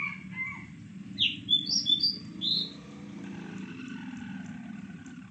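The tail end of a red junglefowl rooster's crow in the first half-second, then a quick run of five or six sharp, high bird chirps about a second in. A steady low hum runs underneath.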